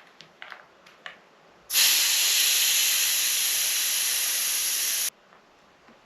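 Air hissing out of the tube-type rear tyre of a Honda Wave motorcycle through its valve as the tyre is let down: one steady hiss of about three seconds that starts near two seconds in and cuts off suddenly. A few small clicks come before it.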